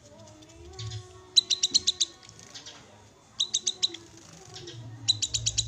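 Cucak kinoi (leafbird) call: three quick runs of sharp, high chips, about ten a second, with softer twittering between them. A low steady hum comes in near the end.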